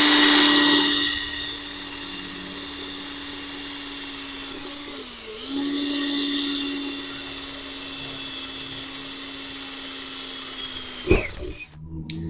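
Electric drill running steadily while drilling mounting-screw holes into the table saw's rip fence, with a louder cutting hiss at first as the bit bites. Its pitch sags briefly about five seconds in under load, and about eleven seconds in the motor is released and winds down.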